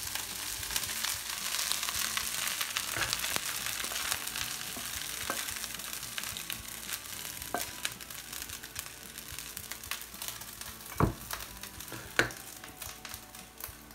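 Chicken fried rice sizzling in a hot frying pan, the hiss slowly dying down as a wooden spatula scrapes and pushes the rice out of the pan onto a steel plate, with small scraping clicks. Two sharp knocks near the end, a little over a second apart.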